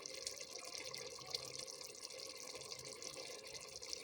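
Liquid trickling and dripping steadily as a boiled palm kernel paste mixture is strained to separate out its oil.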